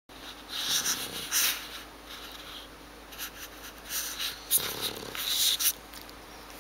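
A sleeping pet snoring like a human: two noisy snoring breaths, about four seconds apart.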